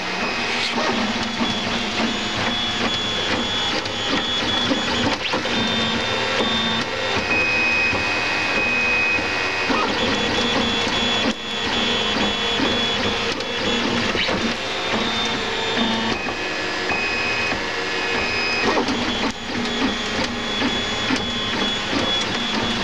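Printrbot Go Large V2 3D printer printing, its stepper motors whining in short steady tones that change pitch every second or so as the print head moves.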